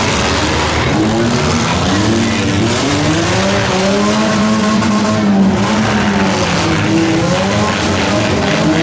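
Several demolition derby compact cars' engines revving up and down at once, their pitches rising and falling against each other, over a dense rushing noise of tyres and running gear on the dirt track.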